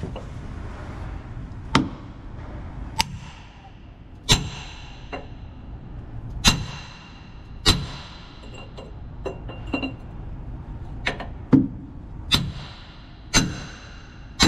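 Hammer blows on a steel bearing driver, driving a Hale pump shaft's ball bearing in flush with its housing: about a dozen sharp metallic strikes at uneven intervals of roughly a second, each with a brief ring.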